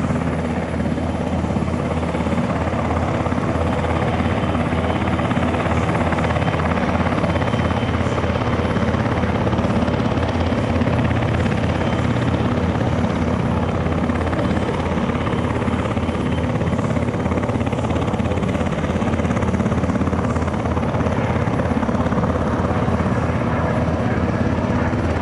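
Airbus Helicopters H160 in flight, its twin Safran Arrano turboshaft engines and main rotor giving a steady, fast blade chop that holds at an even level.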